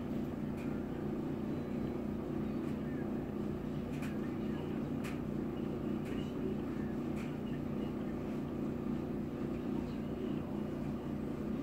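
Steady low hum of background noise, with a few faint light clicks.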